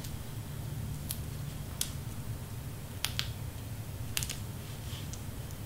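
About half a dozen light, sharp clicks and taps at irregular intervals as cardstock pieces are handled and set down on a cutting mat, over a steady low hum.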